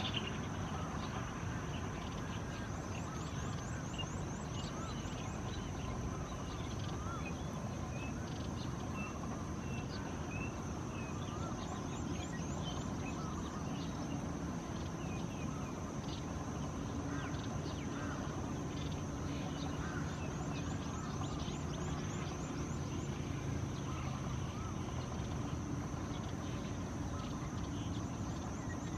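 Outdoor ambience of birds and insects: a steady high insect drone with short runs of rapid ticking that come and go several times, scattered short bird chirps and calls, over a steady low rumble.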